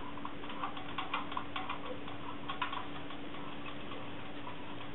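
Tin ladder mechanism of a 1935 Distler toy fire truck clicking as the ladder is worked by hand: a run of irregular small metal ticks that thin out after about three seconds.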